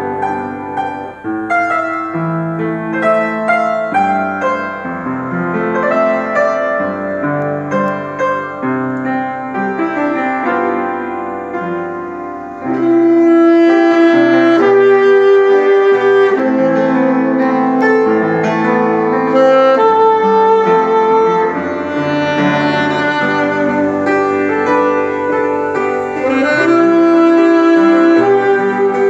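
Upright piano playing alone, then a saxophone comes in about thirteen seconds in and carries the melody over the piano accompaniment, louder from then on.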